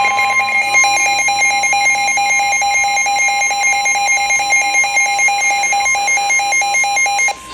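NOAA Weather Radio warning alarm tone, a steady 1050 Hz tone that signals a warning broadcast is about to follow, with a rapid electronic beeping over it at about four to five beeps a second. The beeping stops just before the end while the tone holds.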